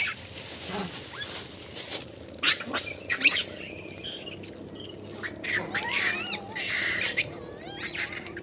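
Long-tailed macaques squealing and screeching in short, high-pitched calls as they scuffle and chase one another. The calls come in scattered bursts, the sharpest about three seconds in, with wavering squeals a few seconds later.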